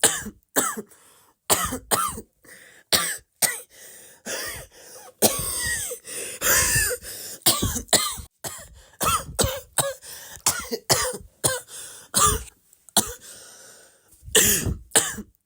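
Coughing over and over: a long run of short coughs, one or two a second, with a few longer, more drawn-out, throaty coughs in the middle.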